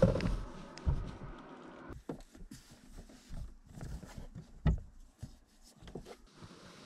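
Bedding being handled on a van's wooden bed slats: fabric rustling and several dull knocks, the loudest about five seconds in. A steady background noise stops suddenly about two seconds in.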